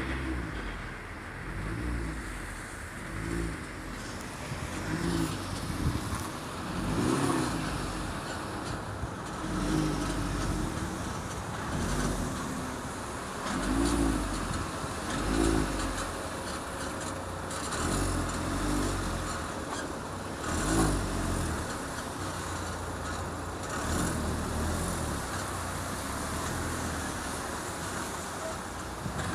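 Car suspension creaking over and over: short rising-and-falling groans every second or two, over a low rumble.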